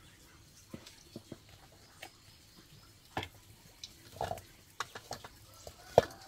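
Irregular sharp pops and crackles from a wood cooking fire and hot oil heating in an iron wok, with the loudest crack about six seconds in.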